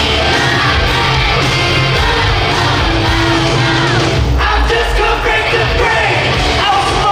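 Loud music with a sung vocal line over a heavy, steady low beat.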